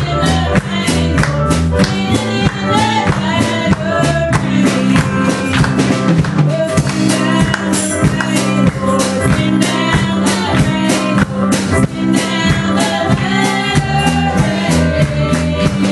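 Live gospel band music: a drum kit keeping a steady beat under electric keyboard, with women singing into microphones.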